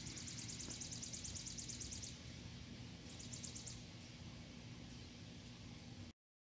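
Faint outdoor ambience with a rapid, high-pitched pulsing trill from a small animal. The trill stops about two seconds in and comes back briefly around three seconds in, over a faint steady low hum. The sound cuts off suddenly near the end.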